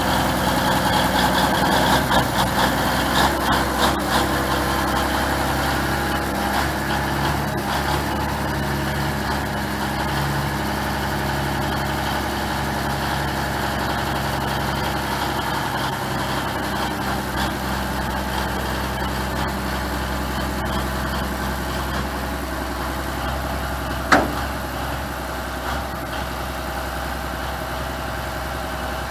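Versatile 800 four-wheel-drive tractor's diesel engine running at low speed as it drives slowly up onto a lowboy trailer. It is louder and uneven for the first several seconds, then settles to a steady run, with a single sharp click about 24 seconds in.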